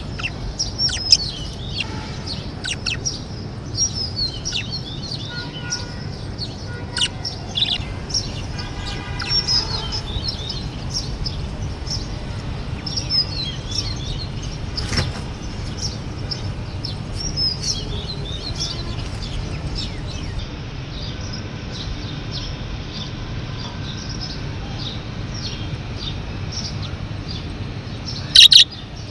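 Budgerigars chirping: a continuous chatter of short chirps that rise and fall in pitch, over a steady low hum. A brief loud burst comes about a second before the end.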